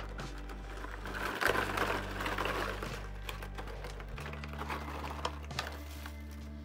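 Crinkling and rattling of a foil snack bag and a foil freeze-dried food pouch as rolled tortilla chips are shaken and poured between them, loudest from about a second and a half to three seconds in. Background music with held low notes that change twice plays underneath.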